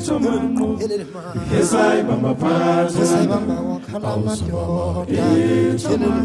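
Music: chanted group vocals over a steady low accompaniment.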